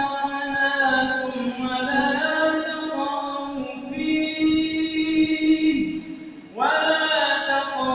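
A male reciter chanting the Quran in melodic tajwid style, holding long drawn-out notes on stretched vowels. About six seconds in his voice falls away into a short pause, then comes back in on a rising note.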